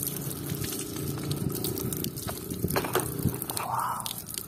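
Tap water pouring in a thin stream onto a plastic toy crocodile and splashing on a concrete floor as it is rinsed of mud. A couple of light knocks come about three seconds in.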